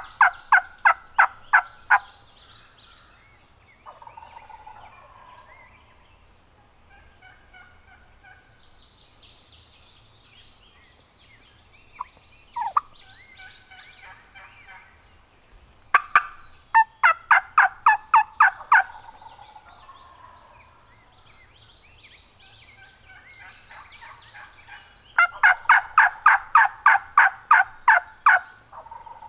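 Turkey yelping: three runs of loud, evenly spaced yelps, about four notes a second, at the start, a little past the middle, and near the end, with fainter songbird chirps between them.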